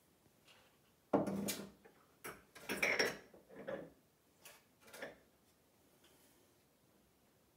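Small glass jars knocking and clinking as they are handled and set down on wooden shelves and the worktop. A loud knock about a second in, then a cluster of lighter taps and clinks that die away after about five seconds.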